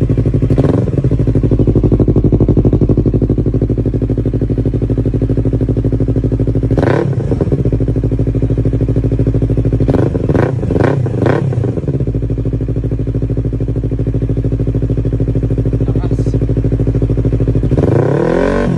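Yamaha R3 parallel-twin engine idling through a LeoVince carbon slip-on exhaust with its silencer insert removed, blipped several times: once soon after the start, once midway, a quick run of about four revs shortly after, and once more near the end.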